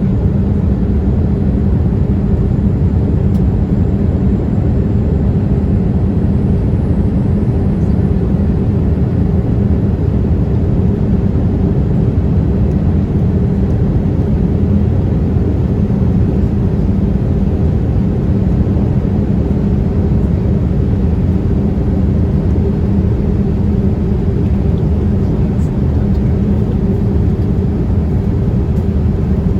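Boeing 787-8 cabin noise in the climb after takeoff: a steady low engine drone and rush of air, unchanging throughout.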